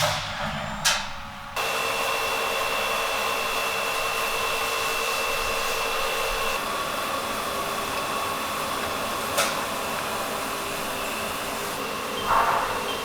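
Milling machine running with a steady even noise that switches on abruptly about a second and a half in. A high steady whine sits over the noise until about halfway through. There is a sharp click near the middle and a short louder burst near the end.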